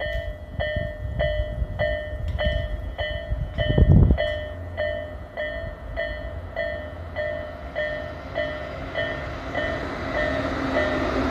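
Japanese level-crossing warning bell clanging steadily, about two strokes a second, as the crossing is closed for an oncoming Tobu 8000 series train. A brief low rumble peaks about four seconds in, and the train's running noise grows louder over the last few seconds as it nears the crossing.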